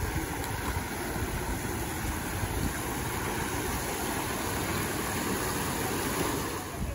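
Steady rush of water spilling over a rock-edged pool wall into the pool.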